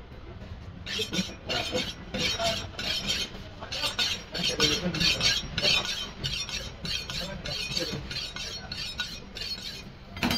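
Steel meat cleaver being honed on a sharpening steel: a quick run of metal-on-metal scraping strokes, about two or three a second, starting about a second in.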